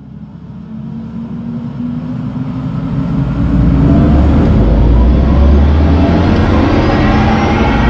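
Audi e-tron GT's synthesized electric-drive sound as the car accelerates: a deep rumble with tones rising slowly in pitch. It swells steadily over the first four seconds or so, then holds loud.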